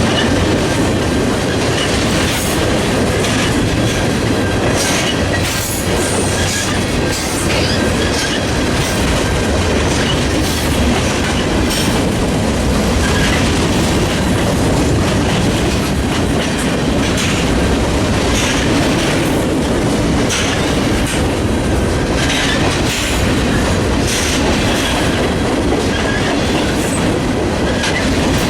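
A freight train's cars rolling steadily past, the wheels clicking and clattering over rail joints with occasional brief squeals.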